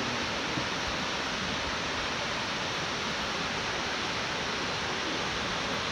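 Waterfall: water falling and splashing, heard as a steady, even rushing noise.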